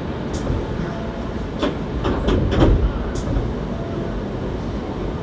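Interior sound of a Hankyu 7300-series train car: a steady low rumble, with a cluster of sharp knocks and clunks between about one and a half and three seconds in, as the train gets under way after its doors close.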